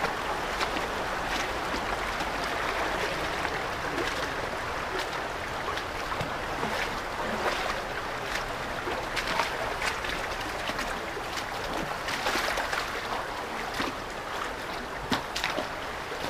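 Shallow creek rushing steadily over stones, heard close to the water, with irregular splashes and knocks of footsteps wading through it.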